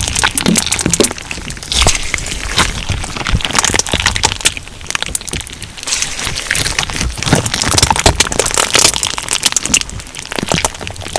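Crunch slime being squeezed and kneaded, giving a dense run of sharp, irregular crackles and pops.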